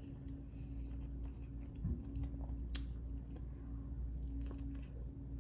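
A person chewing a bite of buffalo chicken sandwich, with scattered small wet clicks and smacks from the mouth, over a steady low hum.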